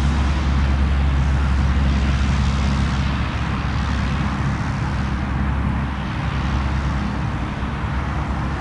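Light propeller aircraft's piston engine running steadily at low power, a low drone with a hiss of noise over it.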